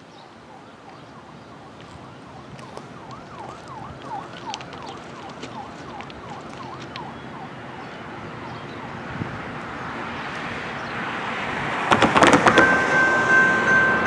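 An approaching freight train's rumble grows steadily louder. About twelve seconds in, the grade-crossing bell starts with a brief clatter and then rings steadily, pulsing with each strike, as the crossing signals activate for the train.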